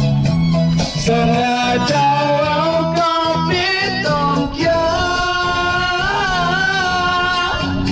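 A man singing karaoke into a microphone, amplified through a portable speaker over a backing track, his voice holding and bending long notes over steady chords.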